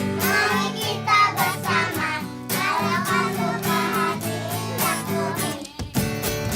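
A group of young kindergarten children singing a children's song together, with a strummed accompaniment; the singing breaks off briefly near the end.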